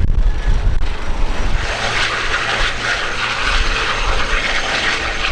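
Airbus H160 helicopter's twin turboshaft engines and main rotor running as it lifts off the ground. The sound turns brighter and fuller about a second and a half in as power comes up for the takeoff.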